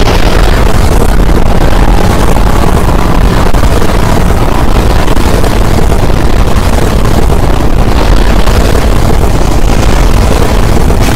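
A loud, steady rumbling noise with a heavy low end, dense across the whole range and without a clear tune or pitch.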